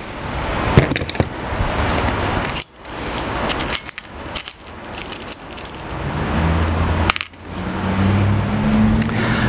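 Small metal screws and washers clinking and rattling as they are handled and picked out from the parts.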